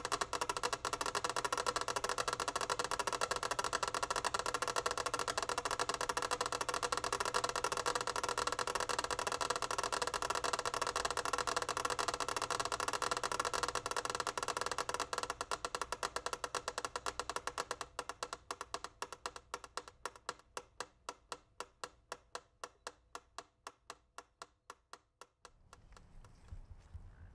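Film projector clattering with a rapid, even clicking over a steady hum. Over the last ten seconds the clicks slow down and fade until the projector runs to a stop, leaving only a faint low rumble.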